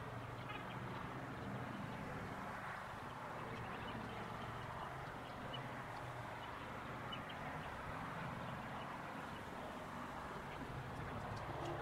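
Steady background noise with faint, scattered short high chirps, and a few faint clicks near the end.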